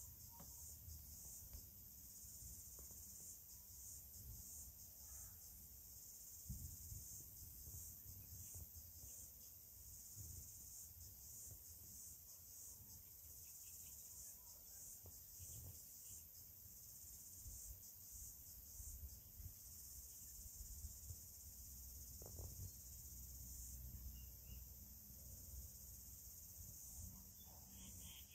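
Near silence: a faint steady high-pitched hiss with a low rumble underneath and a few tiny ticks.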